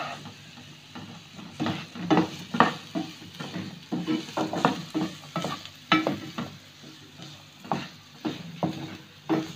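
Wooden spatula stirring and scraping peas and carrots around a non-stick frying pan in quick, irregular strokes, over a light sizzle of the vegetables sautéing in oil.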